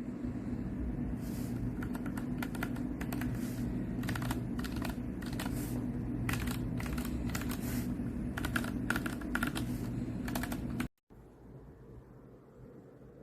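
Typing on a mechanical keyboard fitted with Gateron Ink Black V2 linear switches: a run of quick keystrokes over a low steady hum, cutting off suddenly about eleven seconds in and leaving only faint background noise.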